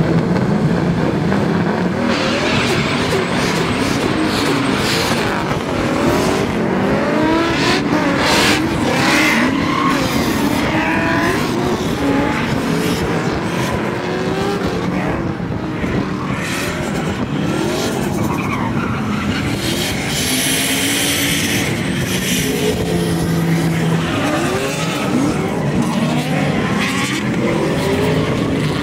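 Several drift cars sliding through a turn one after another, their engines revving hard, rising and falling in pitch over one another, with tyres squealing.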